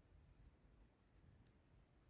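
Near silence: only faint low background rumble.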